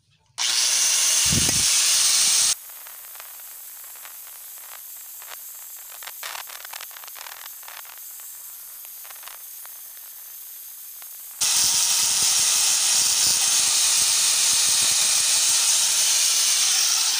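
Angle grinder grinding weld beads off a thick steel pipe, a loud harsh hiss for about two seconds, then a much quieter stretch with scattered ticks, then loud grinding again from about eleven seconds in.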